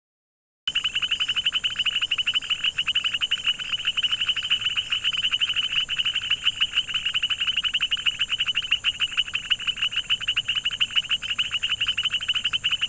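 Frogs calling in a dense chorus: a fast, continuous pulsing trill that starts abruptly about a second in and holds steady.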